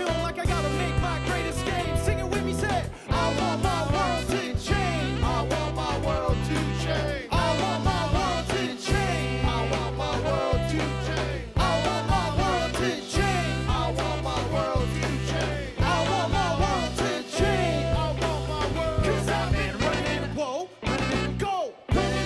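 A live band playing an upbeat song with a steady beat and heavy bass, with a brief break in the music near the end.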